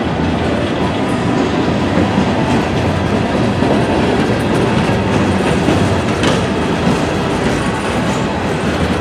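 Empty coal cars of a freight train rolling steadily past at close range: the continuous noise of steel wheels running on the rails.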